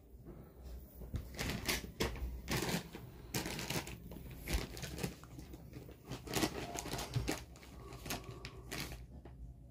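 Irregular rustling and scratching of fabric and bedding as a puppy plays, its paws scrabbling and a rope toy being tugged and dropped.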